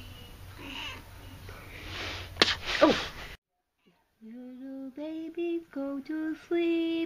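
Very young kittens make faint sounds, and one lets out a short, sharp hissy burst about two and a half seconds in. After a brief silence, a woman hums a slow lullaby in held notes.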